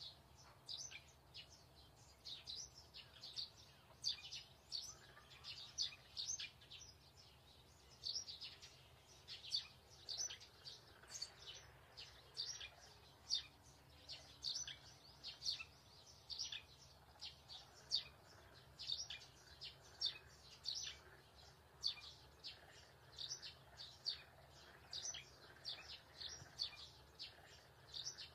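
A bird chirping over and over, faint short high chirps about two or three a second, over a steady low hum.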